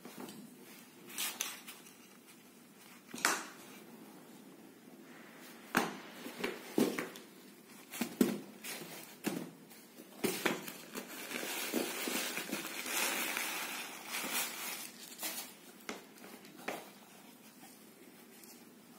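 A pair of knit running shoes handled among their packing: scattered light knocks and taps, with several seconds of crinkling from the plastic and tissue wrapping about halfway through.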